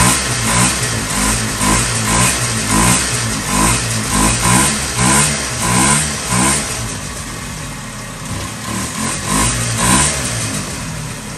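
Rotax aircraft engine in an amphibious 6x6 running, its speed rising and falling in quick regular surges nearly twice a second, then settling into a steadier, quieter run about six seconds in.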